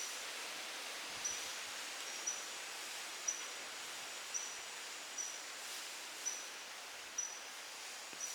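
Outdoor nature ambience: a steady hiss with a short, high call repeating about once a second.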